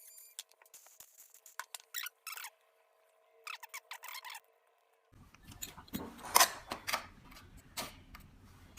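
Small hand tools working on a lighter during a wick change: short squeaky scraping strokes, then from about five seconds in a run of sharp clicks and handling rustle.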